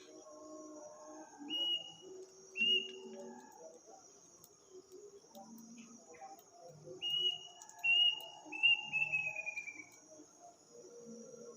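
A bird calling in clear whistles at night, over a steady chorus of crickets. Two short upslurred whistled notes come a second apart. After a pause come three more, running into a quick series of short notes that falls in pitch.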